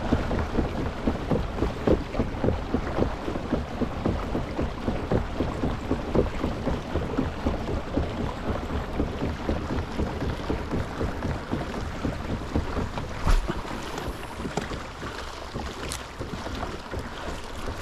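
Lake water splashing and slapping against the hull of a moving fishing kayak, with wind buffeting the microphone. Two brief knocks come about thirteen and sixteen seconds in.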